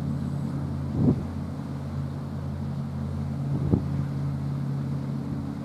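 Steady low engine drone holding several fixed pitches, with two brief wind buffets on the microphone, about a second in and again past three and a half seconds.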